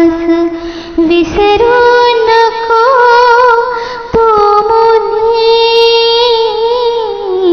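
A woman singing a Marathi mangalashtak (wedding verse), holding long notes with small melodic turns. Her line breaks off briefly about a second in and again just past the middle.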